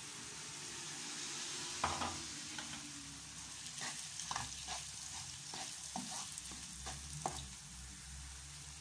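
Rice and onions frying in oil in a pan, sizzling steadily, while a wooden spoon stirs in tomato sauce. From about two seconds in, the spoon scrapes and knocks against the pan a dozen or so times.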